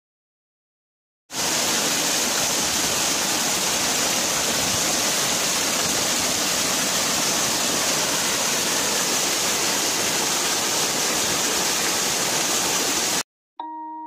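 Steady rushing water of a waterfall, starting abruptly about a second in and cutting off suddenly near the end, where music with chime-like notes begins.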